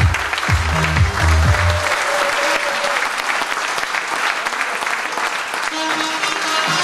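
A crowd applauding, over music with a low bass line that drops out about two seconds in.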